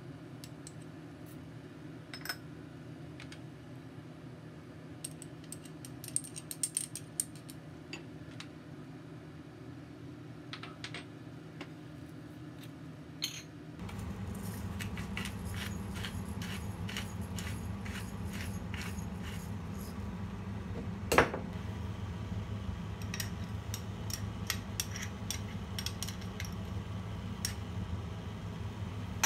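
Light clinks and taps of a metal spoon and small ceramic dishes against a ceramic mixing bowl, scattered and irregular, with one sharper click about two-thirds through. A steady low hum runs underneath and gets louder about halfway through.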